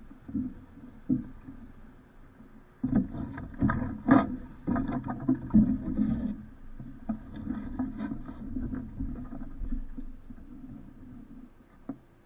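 Water slapping and splashing against a small sailboat's hull in irregular strokes, loudest from about three to six seconds in, then easing off.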